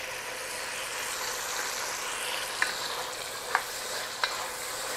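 Chicken pieces and minced garlic sizzling in oil in an enameled cast-iron Dutch oven while a wooden spoon stirs them. Three sharp taps come in the second half as the spoon knocks against the pot.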